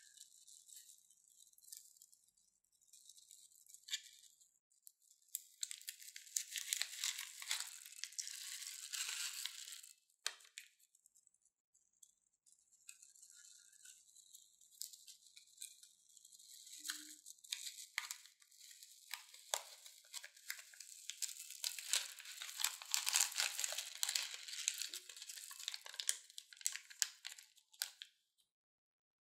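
Small foam beads rattling inside a plastic piping bag and spilling out onto slime as the bag is squeezed and emptied. The sound is a dense, fine, high-pitched crackle in two long stretches with scattered clicks between, and it cuts off suddenly near the end.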